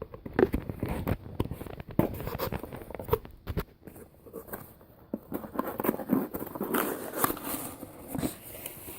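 Rustling and crinkling packaging with irregular light knocks and clicks as small parts are handled and unpacked.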